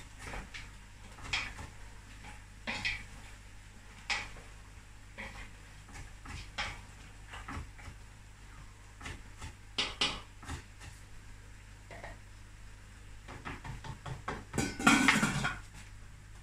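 Kitchen clatter: scattered knocks and clinks of a spoon against a stainless-steel pot and a knife on a wooden chopping board. A louder metallic clatter, about a second long, comes near the end as the lid goes onto the pot.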